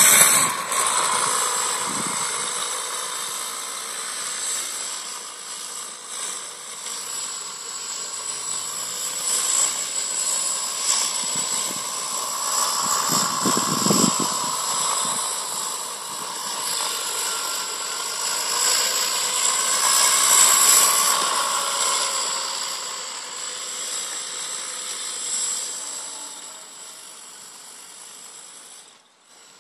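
Home-built electric mini moto, its 3 kW RC-plane motor and 120 A speed controller whining as the bike is ridden, the whine rising and falling with speed and distance. A steady high-pitched tone sits over it throughout, and the sound fades away near the end.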